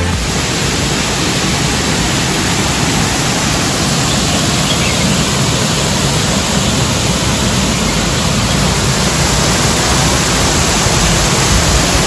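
Man-made waterfall running: a steady, even rush of falling water.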